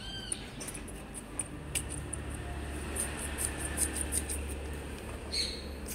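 Light metallic clicks and a brief ring as the pistons and retainer plate of a hydraulic piston pump are handled and pressed together, over a steady low hum.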